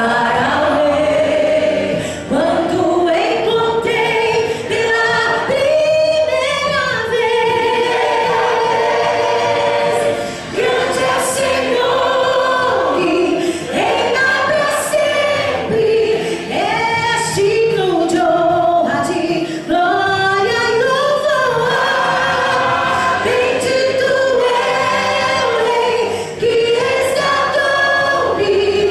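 Church choir singing a gospel song, the voices sustaining long sung phrases with short breaks between them.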